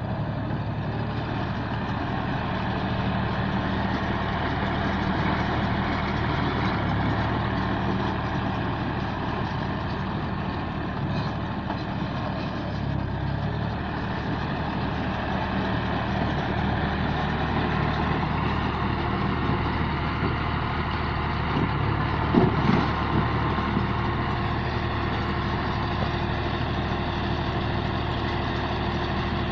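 Rice baler running, its engine steady throughout. There is a short louder clatter about three-quarters of the way through.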